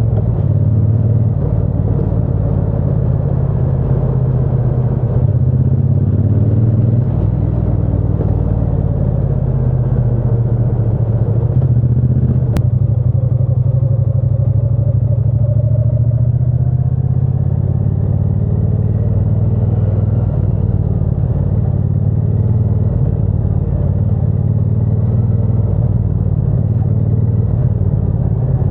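Triumph Bonneville T120's parallel-twin engine running steadily on the move, a constant low rumble that drifts slowly up and down in pitch midway.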